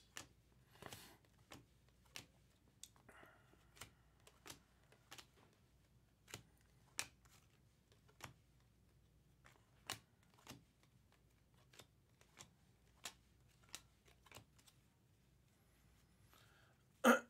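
Faint clicks and slides of glossy Topps Chrome trading cards being flipped one by one through a stack, about one or two a second, with a sigh near the end.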